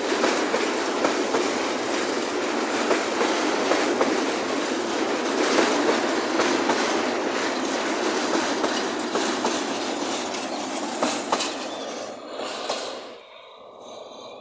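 Freight train of boxcars rolling past close by, steel wheels clattering over the rails with many quick clicks. The sound drops away suddenly about thirteen seconds in as the last car goes by and the train recedes.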